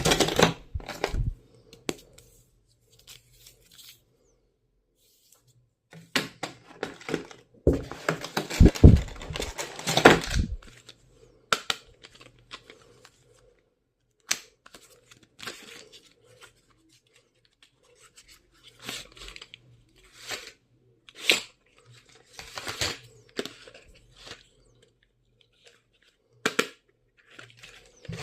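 Packaging being torn and crinkled, with scattered clicks and taps of items being handled; the longest, loudest stretch of tearing comes about six to eleven seconds in.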